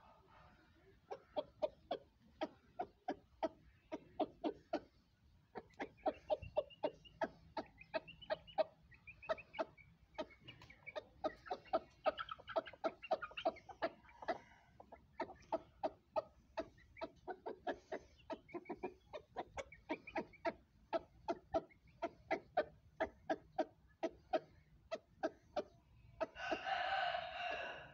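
Aseel rooster clucking in a long run of short, quick clucks, about two to three a second, then giving one louder, drawn-out call near the end.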